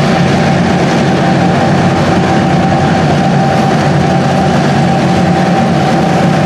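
Diesel switcher locomotives heading a loaded ore pellet train, their engines running steadily as they approach slowly. A steady high whine sits above the engine sound.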